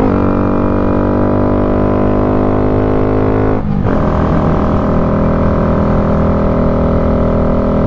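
2023 Honda Grom's small single-cylinder engine, fitted with an aftermarket exhaust, running steadily under way, heard from on the bike over wind rush. The engine note cuts out briefly about three and a half seconds in and comes back a little lower, as with a gear change.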